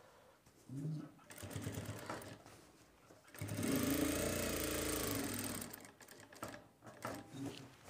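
Sewing machine stitching a pocket onto shirt cloth, first in a short run and then, about three and a half seconds in, in a louder, longer run of rapid even stitches lasting some two seconds before it stops.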